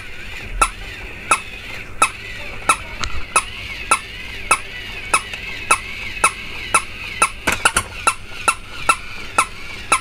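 Battery-powered jumping toy dog running after its repair: its motor and gear mechanism whir with a wavering high whine, clicking sharply about one and a half to two times a second, with a quick cluster of clicks about eight seconds in.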